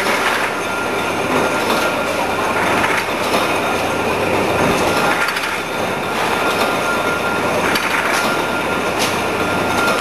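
Liquid bottling-line machinery running: a continuous clattering din from the conveyor and bottles, with a steady high whine and a few sharper knocks.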